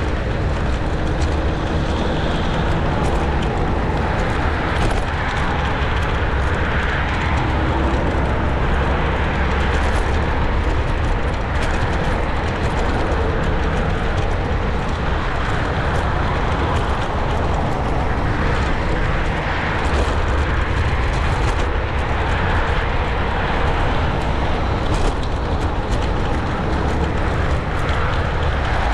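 Riding a NIU KQi3 Pro electric scooter: steady wind rumble on the microphone mixed with road noise, with motor traffic around.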